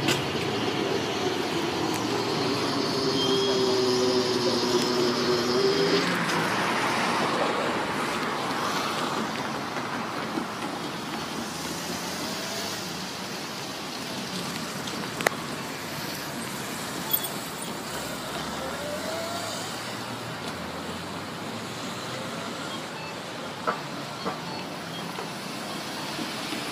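Steady road traffic noise at a level crossing just after a train has passed. A low hum and a higher whine fade away over the first six seconds, and a few sharp clicks come later.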